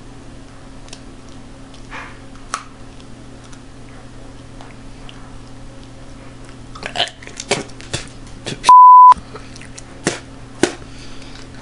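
Scattered crunches and mouth noises as a wax crayon is chewed over a low room hum. About two-thirds of the way in, a short, loud, single-pitch censor bleep is edited in, with the other sound dropping out around it.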